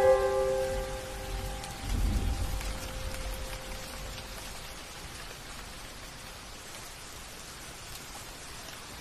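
A rain-and-thunder storm effect: a steady hiss of rain with a low thunder rumble about two seconds in, slowly fading. A few sustained musical notes ring out and die away over the first few seconds.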